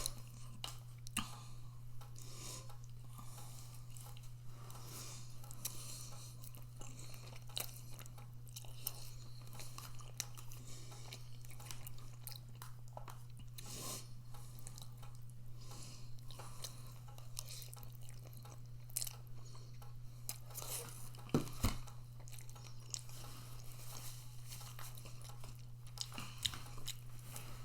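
A person chewing food close to the microphone, with scattered small crunches and mouth clicks, over a steady low hum.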